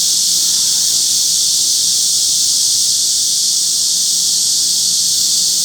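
Korean summer chorus of cicadas and bush crickets (wart-biters): a loud, steady, high-pitched shrill hiss with no let-up.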